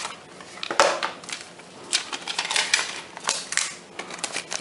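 Rustling and a scatter of sharp clicks and taps from a red cardboard paperwork pack from a phone box being turned over and opened by hand, with the loudest snap about a second in.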